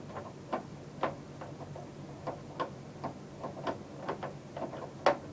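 Screwdriver working a screw out of a TV's back casing: a series of small, irregular clicks as the screwdriver turns, with a louder click near the end.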